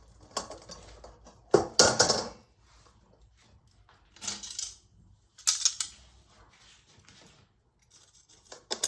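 Metal scraping and clinking in a few short bursts, from the grill and utensils being handled over a brazier of grilled sardines.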